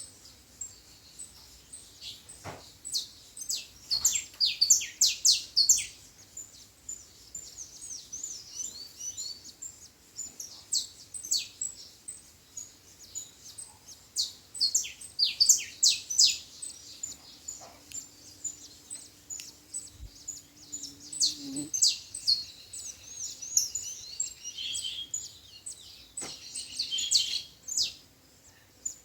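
Small songbirds chirping and singing in rapid high notes, sweeps and trills, in bursts throughout, typical of the double-collared seedeater (papa-capim) around its nest.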